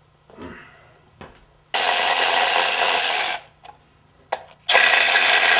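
Handheld power tool spinning fasteners, run in two steady bursts: one of about a second and a half, then a short click, then a second run that carries on.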